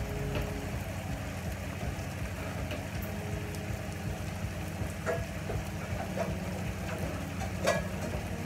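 Pots simmering on the stove, a steady bubbling hiss over a low hum. In the second half come a few knocks and clanks of cookware being moved about in a cupboard, the loudest near the end.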